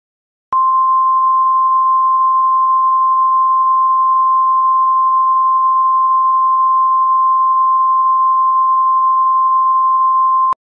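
NOAA Weather Radio 1050 Hz warning alarm tone: one steady, loud pure tone that starts about half a second in, holds for about ten seconds and cuts off just before the end. It is the alert signal sounded ahead of a tornado warning broadcast.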